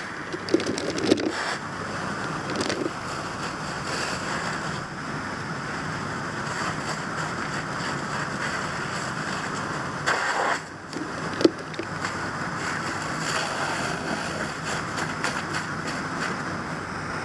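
Fire hose nozzle flowing a steady stream of water into a burning building, a constant rushing hiss of spray, with a few short knocks about a second in and again about ten and eleven seconds in.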